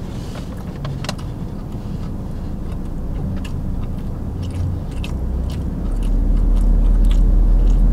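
Chewing a mouthful of fried chicken burger, with small mouth clicks, over the steady low hum of a car cabin with the engine running. The low hum grows louder about six seconds in.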